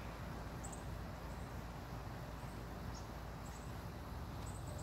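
Quiet outdoor background: a steady low rumble with about half a dozen faint, short, high-pitched chirps scattered through it.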